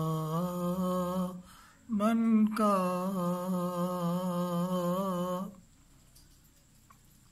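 An elderly man's unaccompanied voice drawing out a line of a naat in two long, slightly wavering held notes: the first breaks off about a second and a half in, the second starts just after and ends about five and a half seconds in.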